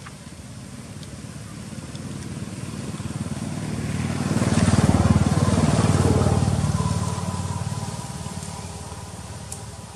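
A motor vehicle's engine passing by, growing louder to a peak about five seconds in and then fading away.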